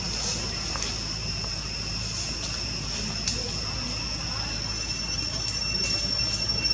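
Insects droning steadily at a high pitch, growing louder near the end, with a few faint clicks.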